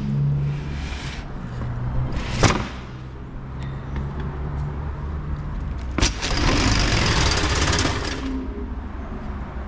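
Fire engine's diesel engine idling steadily. A sharp knock comes about two and a half seconds in, and a click about six seconds in is followed by about two seconds of loud hissing noise.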